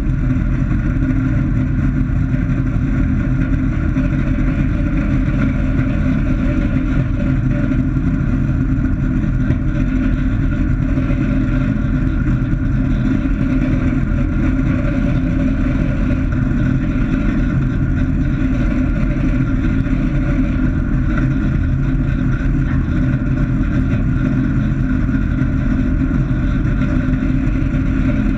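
Light aircraft's piston engine and propeller running steadily at taxi power, heard from inside the cockpit, with no change in pitch or level.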